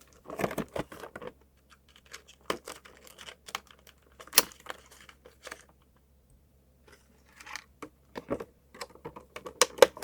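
Hands opening a plastic toy package: irregular clicks, taps and crinkling of plastic and cardboard, with one sharp click about four seconds in and a short pause around six seconds.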